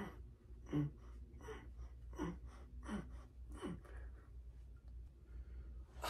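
A man breathing out hard from exertion during a heavy dumbbell set: six short, strained exhales, each falling in pitch, about one every 0.7 seconds, stopping about four seconds in.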